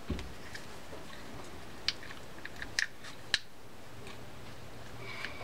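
Small clicks and taps from a spinning reel's metal rotor and bale wire being handled and reshaped by hand. There are a few sharp clicks between about two and three and a half seconds in, over a faint steady hum.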